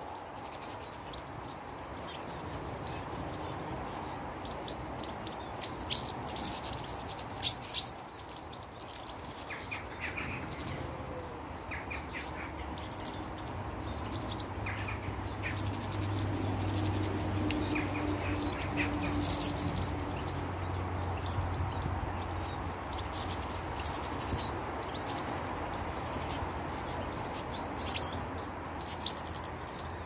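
Small garden finches, goldfinches among them, chirping and twittering at the feeders in short scattered calls. Two sharp knocks come about seven seconds in, and a low hum rises and fades in the middle.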